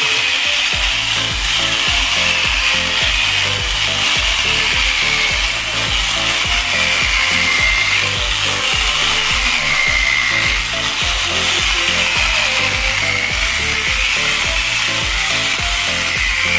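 Electric chainsaw cutting through a log, its motor whine sagging and recovering several times as the chain bites into the wood. Background music with a steady beat plays underneath.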